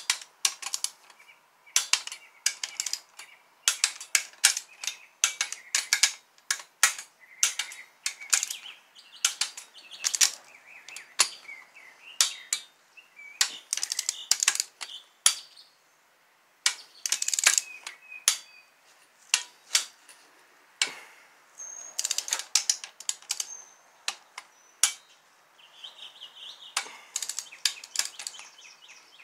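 Hand socket ratchet clicking in quick runs with short pauses, as the bolts of a Toyota 2AZ-FE engine's balance shaft housing are run down and tightened.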